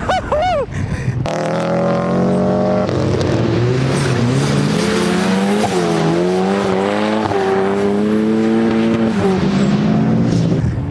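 Turbocharged 1.8-litre Mazda BP four-cylinder engine of an Exocet track car working hard. Its note holds, dips and climbs again several times as the car drives past. A short squeal comes in the first second, and near the end the engine note gives way to a steady rushing noise.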